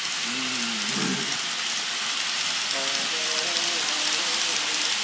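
N-gauge model train, an EF81 locomotive hauling 24-series Twilight Express coaches, rolling past close by: a steady hissing rattle of small wheels on the track. A brief voice sounds near the start, and faint music comes in at about three seconds.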